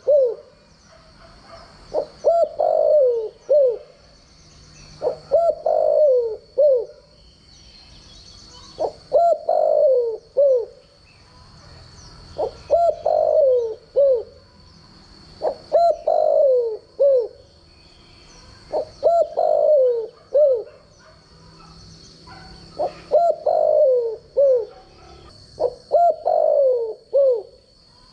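Spotted dove cooing its song over and over, a phrase roughly every three seconds: each phrase a few low coos that fall in pitch, ending in a short final note.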